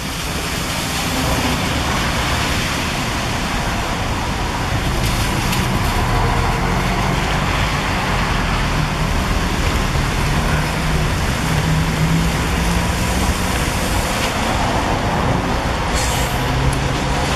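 Marcopolo New G7 intercity coach pulling in, its diesel engine running with a steady low hum over traffic noise, growing louder in the first couple of seconds. A brief hiss near the end.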